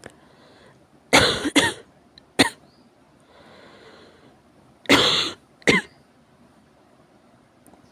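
A fit of severe coughing in two groups: three harsh coughs in quick succession, a faint breath, then two more coughs.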